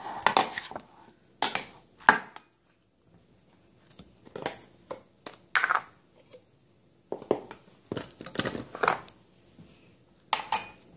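A metal spoon mixing cut fruit in a white ceramic plate: irregular clinks and scrapes of the spoon against the plate.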